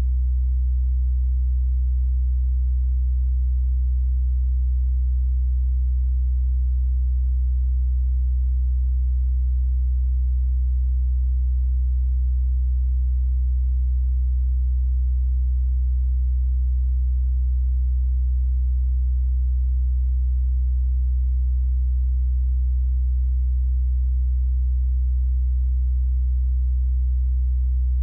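Steady low electrical hum, a constant low tone with fainter higher overtones and no change in level; nothing else is heard.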